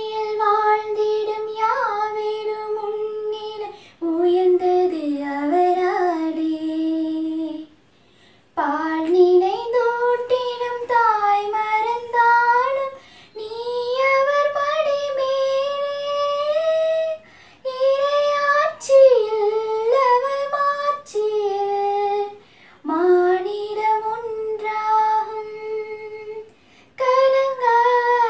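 A young woman singing a Christian devotional song solo and unaccompanied, in phrases of a few seconds with short breaks for breath between them.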